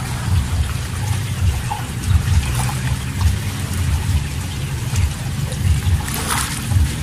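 Wind buffeting the microphone in gusty low rumbles over a steady hiss, with a brief louder rush about six seconds in.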